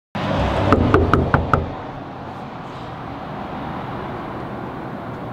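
Knuckles knocking on a paneled front door: five quick, evenly spaced knocks in about a second.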